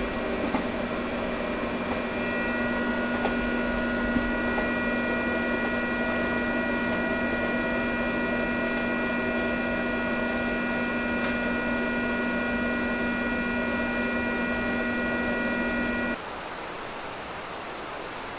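A steady electrical hum made of several unchanging tones, one low and a few high, over a background hiss. It cuts off abruptly about 16 seconds in and gives way to a quieter, even outdoor hiss.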